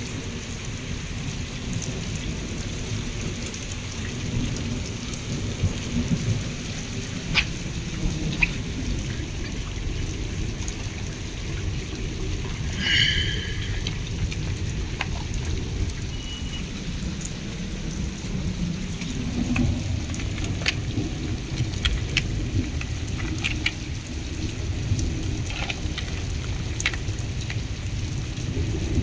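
Steady rain falling on a concrete rooftop, a continuous hiss over a low rumble, with scattered sharp taps throughout and one brief high squeak about halfway through.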